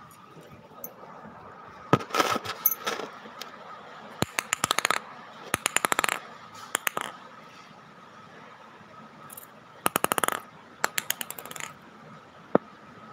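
A small plastic ball bouncing and clattering on a tiled floor: several bursts of rapid clicks, each a quick run of bounces, with a single tap near the end.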